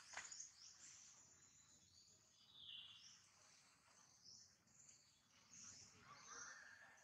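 Faint, steady, high-pitched insect chirring, with a few short chirps scattered through it and a small click just after the start.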